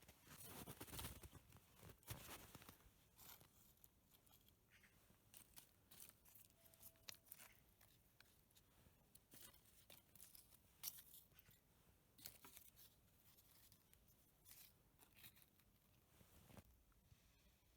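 Near silence with faint, scattered crackles and rustles, denser in the first couple of seconds.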